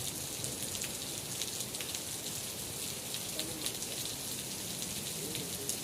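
Steady rain falling, with many individual drops ticking sharply close by over an even hiss.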